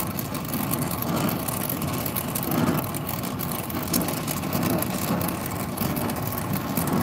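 Brazing torch flame hissing steadily as it heats a copper refrigerant line joint at a refrigerator compressor, the heat being spread evenly around the joint so the filler flows.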